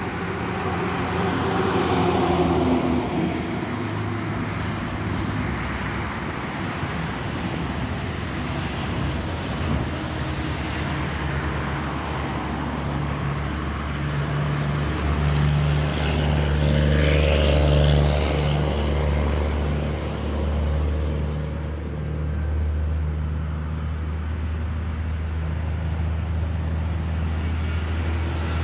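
Airbus A320 airliner's jet engines on final approach, heard as a continuous low rumble that swells about halfway through and then holds steady, mixed with road-traffic noise.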